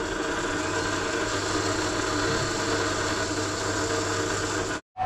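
Pillar drill running with its bit cutting into a metal plate, drilling out rivet holes: a steady motor hum and whine with a hiss of cutting. It cuts off suddenly near the end.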